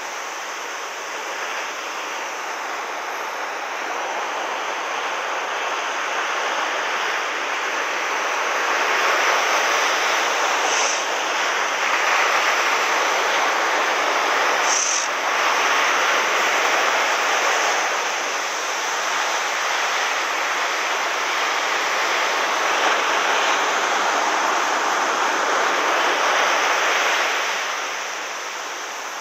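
Ocean surf breaking and foamy wash running up the sand, a steady rushing noise that swells louder a few seconds in and drops back near the end.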